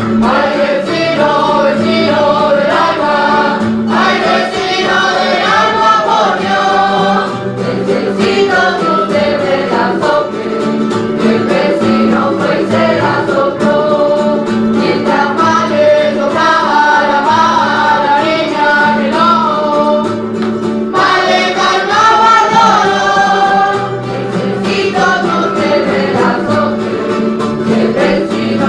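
Canarian folk group singing in chorus over plucked and strummed string accompaniment, the voices dropping out briefly about four seconds in.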